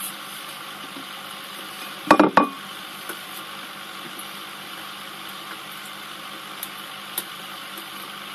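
Steady hiss and bubbling of an aquarium's filter and air bubbles, with a quick run of three sharp knocks about two seconds in.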